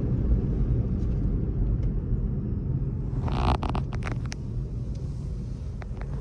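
Steady low rumble of a car, heard from inside the cabin. About three seconds in, a brief scratchy noise with a few clicks sounds close to the microphone.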